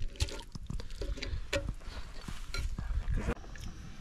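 Soup being stirred and ladled in a cooking pot: scattered small clinks of a utensil against metal and splashes of liquid.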